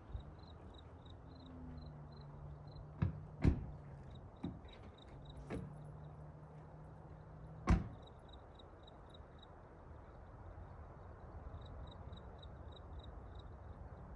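A truck engine idles with a steady low hum. Several sharp knocks fall in the middle, the loudest about eight seconds in. A faint high chirp pulses about three times a second.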